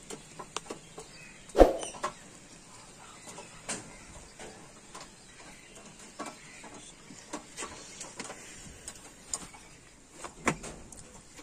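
Screwdriver working the bolts on a gas stove's sheet-metal top: scattered light clicks and taps of metal on metal, with a sharper knock about a second and a half in and another near the end.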